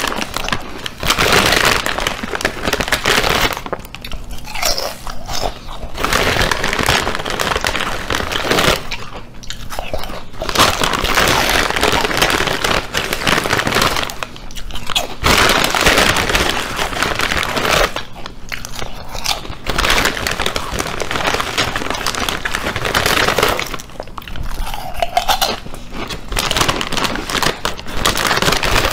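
Potato chips being crunched and chewed loudly, mouthful after mouthful, with five short pauses between bites.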